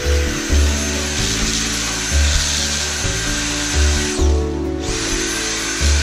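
Background music with a steady bass beat, over a cordless drill-driver running in long spells against the screws of an air conditioner's wall mounting plate, with a short pause about four seconds in.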